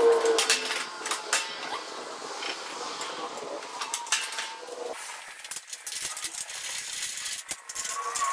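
Scattered metallic clanks and clicks as a steel plow mounting plate is handled and offered up to the underside of an ATV.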